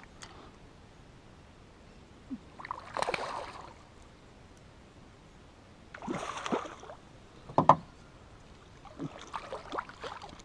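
Water swishing against a canoe three times, a few seconds apart, with one sharp knock on the hull about halfway through, the loudest sound here.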